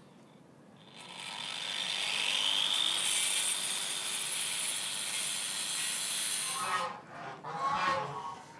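Compact handheld circular saw spinning up about a second in and cutting through a wooden board, running steadily for several seconds and then stopping abruptly. Near the end a cow moos.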